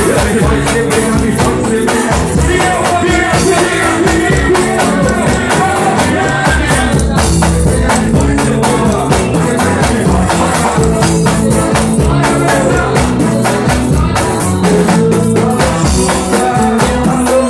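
Pagodão band playing loud: a dense, driving drum and percussion groove with singing over it.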